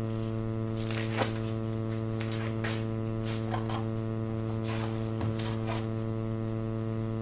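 Steady electrical hum, with a scattering of short rustles and light knocks as ostomy supplies are handled.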